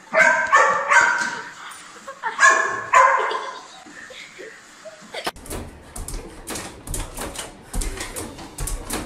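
Dog barking at a robot vacuum cleaner: about five sharp barks, three quick ones then two more a second later. About five seconds in, a run of quick taps and low thumps.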